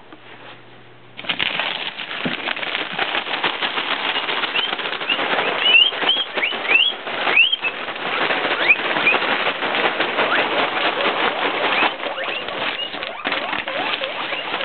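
Loose hay rustling and crackling as a guinea pig hay rack is refilled, starting suddenly about a second in. Over it, guinea pigs give short rising squeaks, a quick run of them in the middle and a few more near the end: excited wheeking at feeding time.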